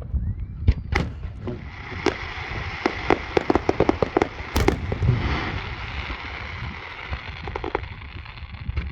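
Aerial fireworks bursting: scattered sharp bangs, then a rapid string of cracks about three to four and a half seconds in, over a steady hiss that fades toward the end.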